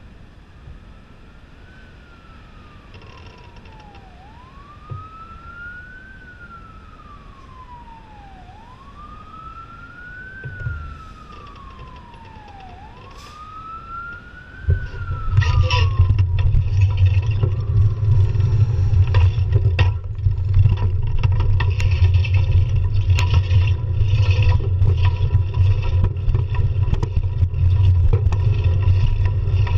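An emergency-vehicle siren wailing, faint, slowly rising and falling about four times, over low traffic noise. About halfway through, a loud low wind rumble on the microphone with rattles and clicks takes over as the bicycle gets moving.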